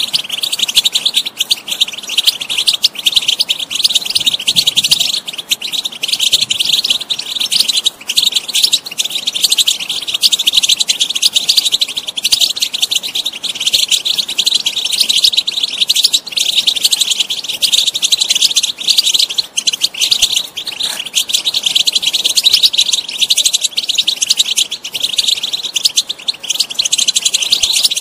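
European goldfinch singing: a rapid, continuous twittering and chattering song without pauses.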